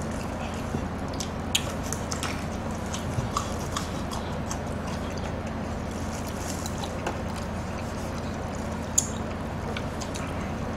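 Close-miked eating: chewing and mouth sounds as two people eat noodles and chicken, with scattered sharp clicks of chopsticks against bowls and trays, the sharpest about nine seconds in. A steady low hum runs underneath.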